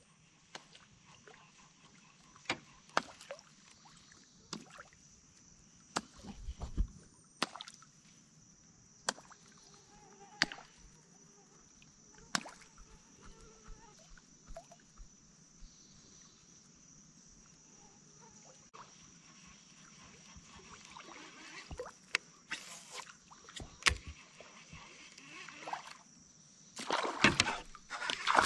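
Scattered sharp clicks and knocks over a faint, steady high-pitched buzz. Near the end a hooked bass splashes and thrashes at the water's surface.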